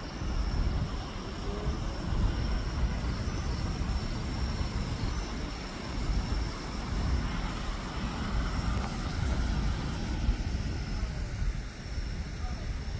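Outdoor background rumble, uneven in loudness and heaviest in the bass, with a faint steady high tone running through it.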